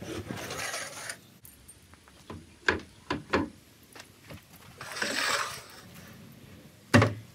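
Wooden plank ramps being dragged out and set down at a shed doorway: wood scraping twice, a few sharp knocks, and a heavy thud near the end as a board drops into place.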